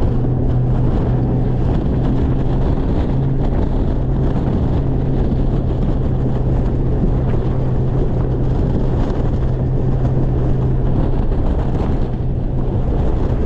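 Boat outboard motor running steadily under way, a constant low drone, with wind rushing over the microphone.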